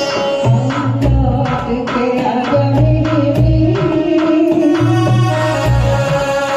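Hindi film song accompaniment with a steady, repeating drum rhythm under a held, wavering melody line, with singing in places.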